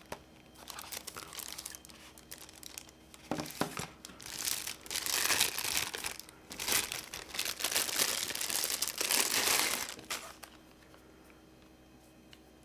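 Thin clear plastic wrap crinkling as it is pulled off a camera lens by hand, in rough irregular bursts that grow louder from about four seconds in and stop about ten seconds in.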